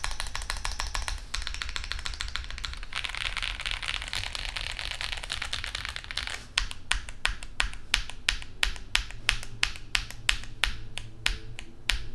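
Typing on a CIDOO V65 aluminum 65% mechanical keyboard with factory-lubed switches on a PC plate: a fast run of dense key clacks, then from about six seconds in slower, evenly spaced single keystrokes, about three a second.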